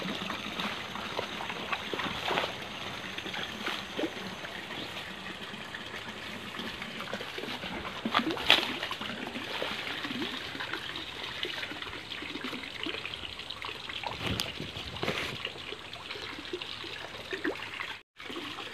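Steady trickle and gurgle of water running into a small fish pond, with a few splashes at the surface.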